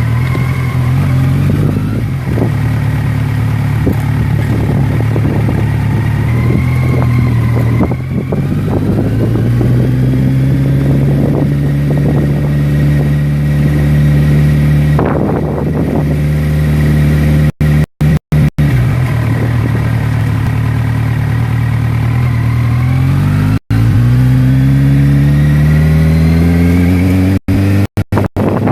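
A motor vehicle's engine running, its pitch slowly rising and falling as it speeds up and eases off, with a long rise near the end. The sound cuts out completely for brief moments several times past the middle and near the end.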